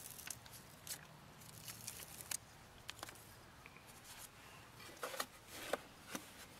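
Faint handling noise: scattered light clicks and rustling as a plastic side-view mirror housing and its adhesive-backed foam gasket are handled and fitted together by hand, with a few louder clicks about five seconds in.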